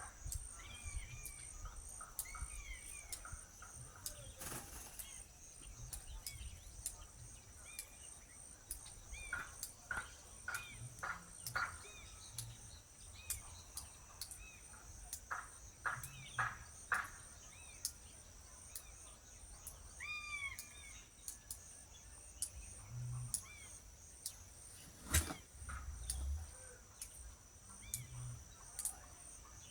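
Small birds chirping on and off in short arched notes over a steady high-pitched insect trill, with a sharp click about 25 seconds in.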